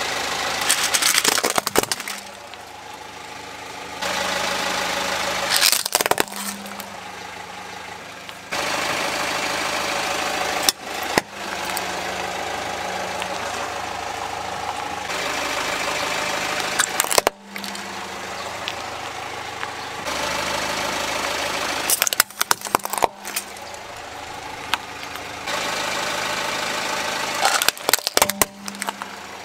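Car engine idling as a tyre rolls over plastic toys, crushing them with sharp cracks and crunches about six times. The steady engine hum jumps in level between short clips.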